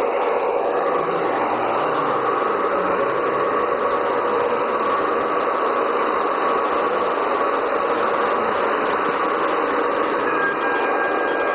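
Gauge 1 model ore train of hopper wagons rolling along metal track, a steady rolling noise of wheels on rail.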